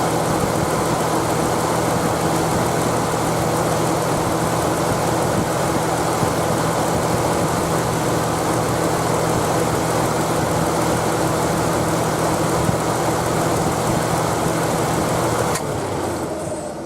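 Nissan Elgrand E51's engine idling steadily. About a second before the end it is switched off and its sound dies away.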